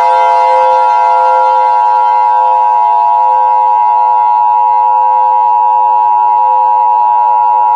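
Emergency Alert System attention signal: a loud, steady two-tone beep held without a break, announcing an emergency message.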